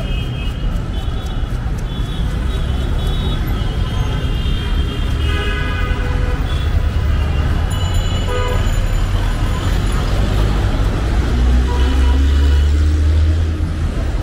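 Street traffic: a low engine rumble of passing vehicles that builds and is loudest about twelve seconds in, with short horn toots scattered through.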